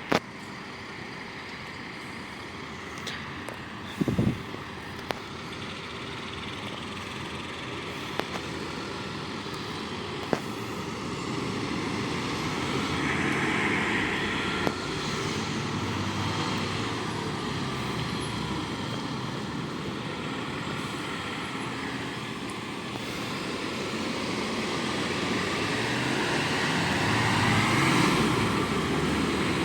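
Road traffic noise of vehicles driving by, growing louder as they approach, with a few sharp clicks along the way.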